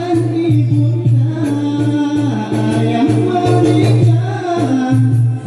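Acehnese rapai frame drums beating a steady rhythm under a melodious lead vocal, the syeh's singing line rising and falling over the drums.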